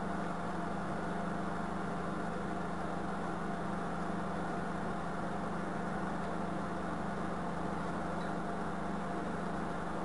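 A steady low hum with an even hiss, unchanging throughout, with no distinct knocks or other events.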